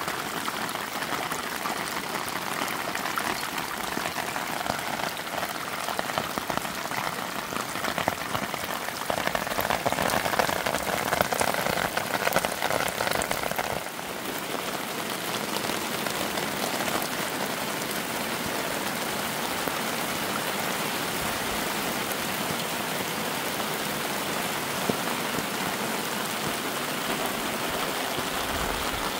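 Steady rain falling on corrugated sheet-metal roofing. It is heavier for a few seconds about a third of the way in, then settles to an even level.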